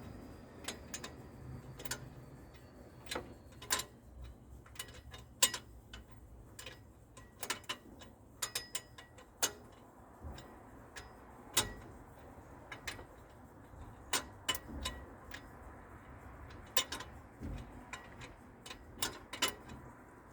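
Sharp, irregular clicking of a ratchet wrench being worked on cylinder head bolts while their torque is checked, one to three clicks a second in uneven runs.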